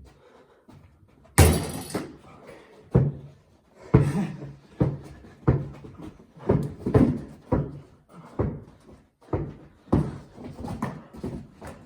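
A basketball dribbled on a hard indoor floor, a dull bounce about every half second. About a second and a half in there is one loud, ringing slam.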